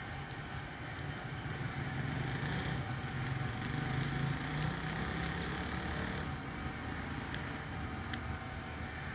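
Distant traffic rumble that swells about four seconds in and then eases off, with a few faint clicks.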